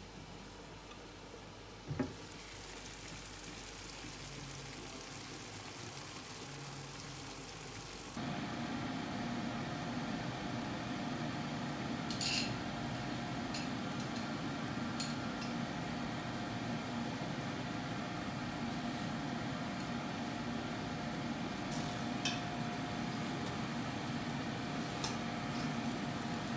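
Food sizzling in a frying pan, a steady hiss that gets louder about a third of the way in, with a few sharp clicks of a utensil against the pan.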